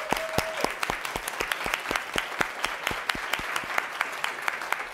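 Small audience applauding, with many separate, distinct hand claps that keep up steadily throughout.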